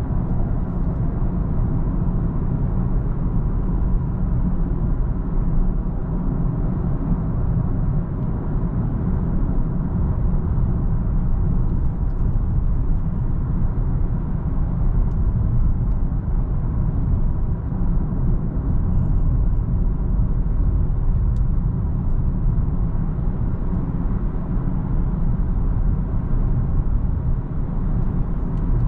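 BMW 330i (G20) being driven at a steady pace: a continuous low rumble of road and engine noise that holds steady throughout.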